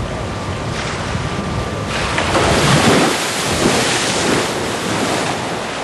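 A killer whale splashing in its pool: water churns and rushes against the pool wall, building about two seconds in and loudest around the middle, with wind buffeting the microphone.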